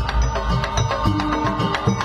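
Instrumental music with drums and percussion keeping a quick, steady beat under a bass line and a melody.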